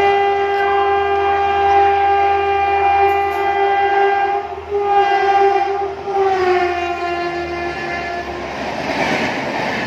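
Locomotive horn blown in one long blast, broken briefly in the middle, its pitch dropping about six seconds in as the engine passes. The rush of the passenger coaches going by at speed follows near the end.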